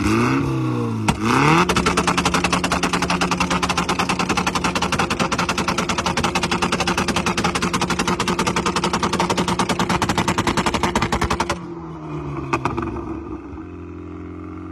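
Car engine blipped up and down twice, then held on the rev limiter for about ten seconds with a rapid, even machine-gun stutter, and then let go suddenly, the revs falling back toward idle with one more short blip.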